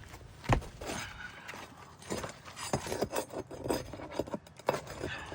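Pry bar scraping and clicking against asphalt shingles while working at a roofing nail that won't come out. There is a sharp knock about half a second in, then several smaller clicks and scrapes.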